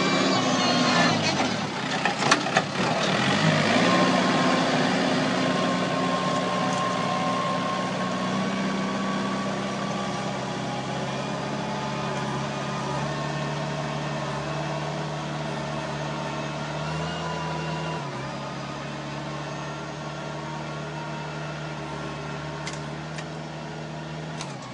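Valpadana 4655 compact tractor engine working under load while pulling a moldboard plough through turf. In the first few seconds the engine note sags, with some clattering, then picks up again. It then runs steady, slowly fading as the tractor moves away.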